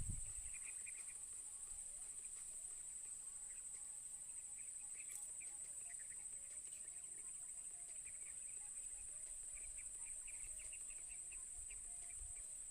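Outdoor natural ambience: a steady high-pitched insect drone, with scattered short bird chirps over it.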